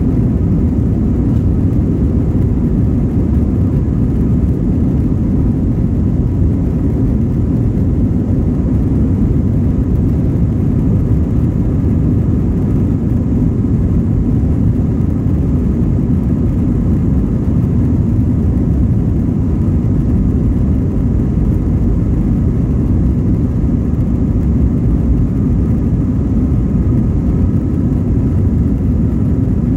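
Airbus A320's CFM56-5B jet engines at high thrust for takeoff, heard inside the passenger cabin as a steady, loud, low rumble with a faint whine.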